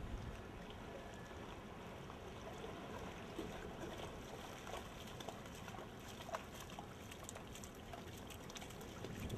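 Faint splashing and sloshing of shallow floodwater as a boxer dog wades through it, with many small scattered splashes.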